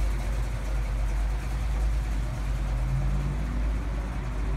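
Car engine running nearby, a steady low rumble.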